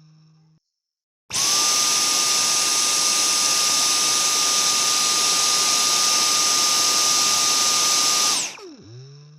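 Vacuum cleaner switched on: its motor whine rises quickly to a steady high pitch over a loud rush of air. It runs for about seven seconds, then is switched off and winds down with a falling whine that fades away.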